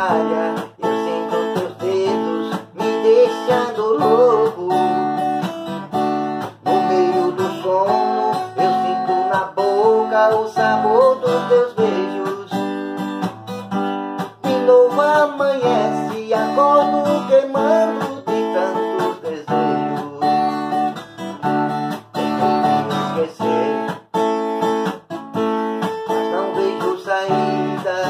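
Acoustic guitar strummed in a steady rhythm, with a man singing over it in stretches.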